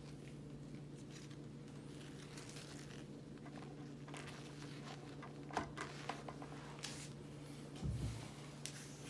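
Faint handling noises: light scrapes, rustles and small clicks, with a dull thump about eight seconds in, over a steady low hum.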